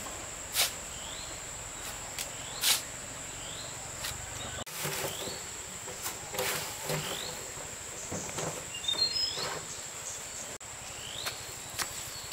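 Steady high-pitched insect drone with a bird repeating a short rising chirp about every second and a half. A few sharp knocks come through, two of them louder near the start.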